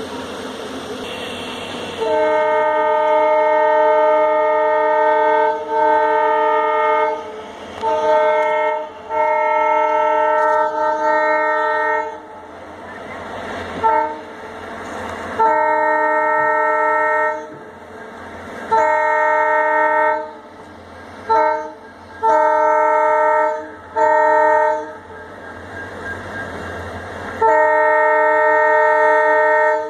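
Diesel locomotive's multi-note air horn sounding repeatedly, about a dozen blasts from short toots to holds of several seconds, each a steady chord, with a steady rumble between them.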